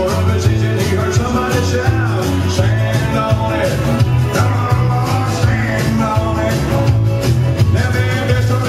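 Upbeat country dance music with a singer over a steady beat and a strong bass line.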